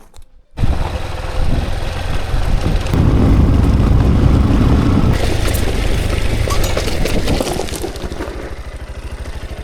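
Motorcycle engine running under way, loudest around the middle and easing off near the end.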